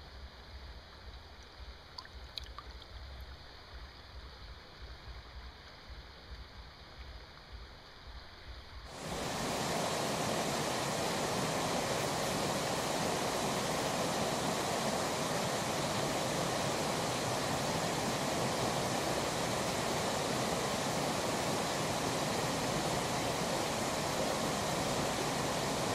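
Quiet water sounds with a low rumble and a few faint clicks, then, about nine seconds in, a loud, steady rushing of river water begins abruptly and carries on unchanged.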